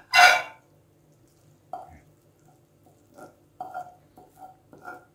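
A loud clatter of kitchenware at the start, then a run of short, quieter, irregular scrapes and taps as a utensil scoops the thickened butter and mulberry-molasses mixture out of the pan onto a plate.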